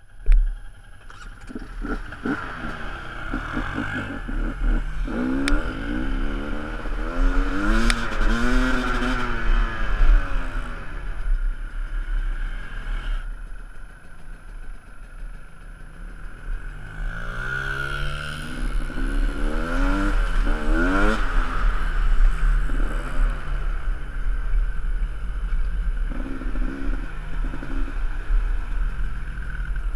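Dirt bike engines running on a trail ride, the pitch rising and falling with the throttle, most strongly in two stretches of revving, over a steady low rumble.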